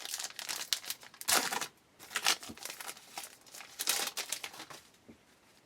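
A trading-card pack wrapper being torn open and crinkled, in a run of uneven rustling bursts.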